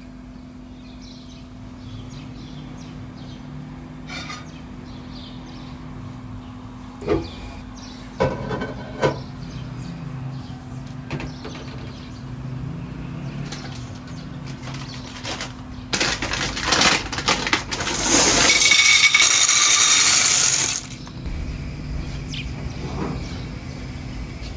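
Kitchen work sounds: a low steady hum with a few knocks and clinks, then a loud rushing hiss lasting about five seconds, about two-thirds of the way in.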